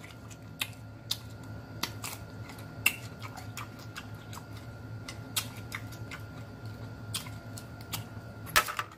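Close-miked mouth sounds of a person chewing food: irregular wet clicks and lip smacks, with a quick run of sharper smacks near the end.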